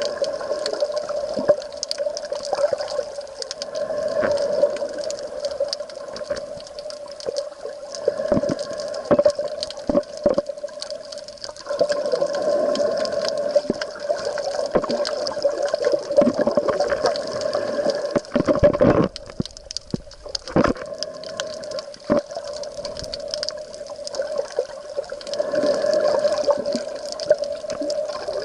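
Seawater sloshing and gurgling around the camera, with scattered clicks and a steady hum underneath.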